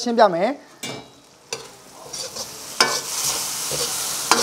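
Noodles sizzling in a wok as they are stir-fried, with a metal ladle knocking and scraping against the wok several times. The sizzle grows louder from about two seconds in.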